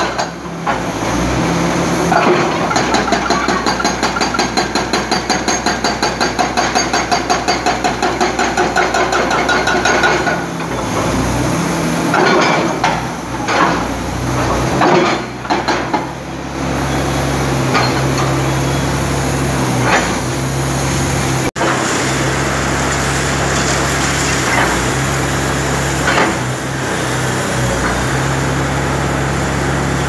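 Excavator-mounted hydraulic breaker hammering on concrete rubble, about four blows a second, for roughly the first ten seconds. A few scattered knocks follow, then the excavator's diesel engine runs steadily with a low hum.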